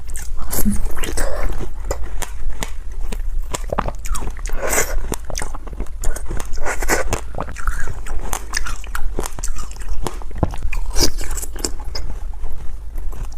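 Crunchy ice being bitten and chewed, a dense run of sharp cracks and crunches.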